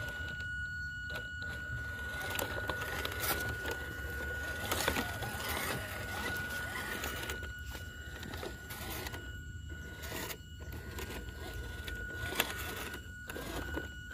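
Small RC rock crawler running on a 180 brushed motor and plastic gearbox, with a steady high whine throughout and scattered knocks and scrapes over rough ground.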